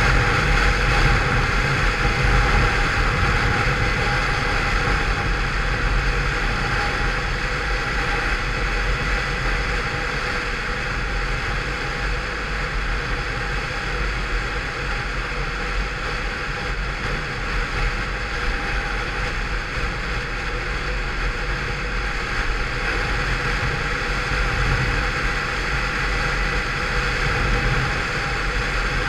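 Peugeot Vivacity 50cc scooter engine, derestricted with a changed variator and rollers, running at a steady cruise with an unchanging pitch.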